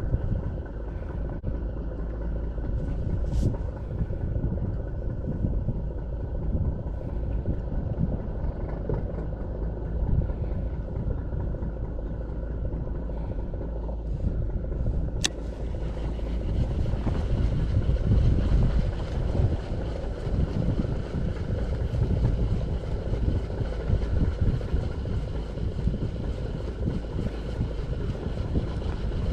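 Wind buffeting the microphone, a steady low rumble without any clear tone, with a single sharp click about fifteen seconds in.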